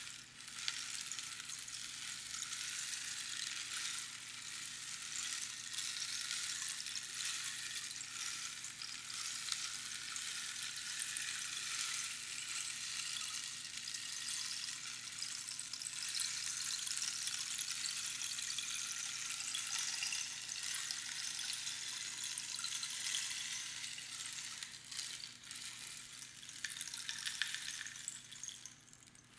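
Rainstick: small pebbles or beans trickling down past the pins inside the hollow tube, a continuous rain-like patter. The flow dips briefly right at the start and thins out near the end as the fill runs down to the lower end.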